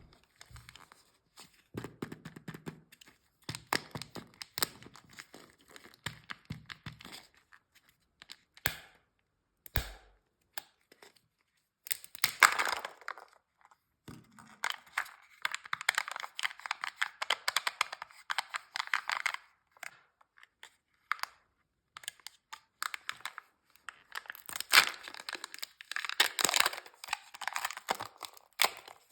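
Sweet wrappers being torn open and crinkled: rustling packaging with many small clicks and crackles, coming in bursts. The loudest stretches are about twelve seconds in and again a few seconds before the end.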